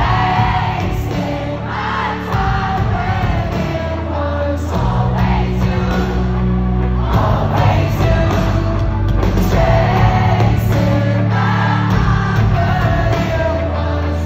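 Live pop-rock band performing in an arena, with electric bass, guitar and drums under a male lead vocal, heard from within the crowd.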